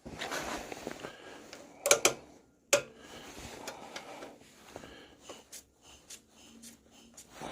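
Handling clunks: a cluster of sharp knocks about two seconds in and another just under a second later, then faint scattered clicks and rustling. No engine is running yet.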